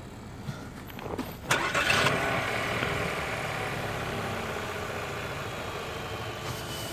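2017 Chevy Malibu's engine starting about a second and a half in, then settling into a steady idle.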